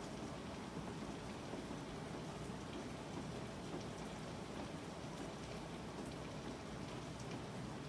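Steady rain falling during a storm, with faint scattered drop ticks.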